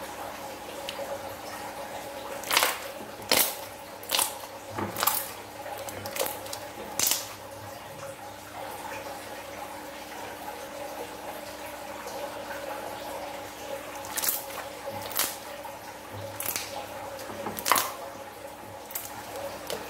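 Clear slime being stretched and squeezed by hand, giving sharp wet pops and clicks as pockets of air in it burst. The pops come in quick runs a few seconds in and again near the end, over a faint steady hum.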